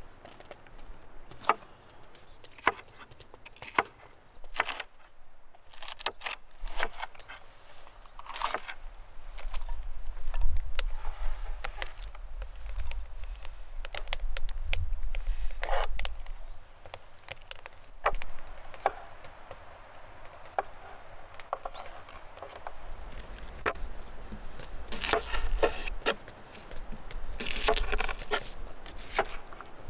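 A series of irregular sharp knocks and clicks, spaced unevenly through the stretch, over a low rumble.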